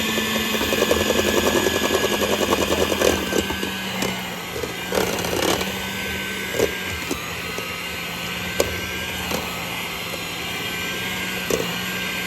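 Electric mixer running on low speed, shredding cooked chicken thighs in a bowl: a steady motor hum with a fast rattle of the beaters through the meat for the first few seconds, then steadier running with a few sharp knocks against the bowl.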